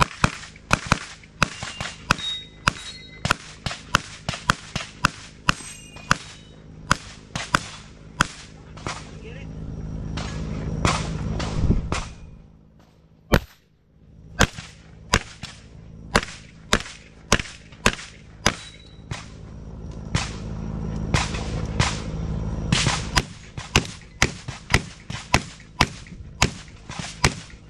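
Gunfire: a long string of single shots about two a second, then, after a short quiet gap about twelve seconds in, a second string of shots from a handgun.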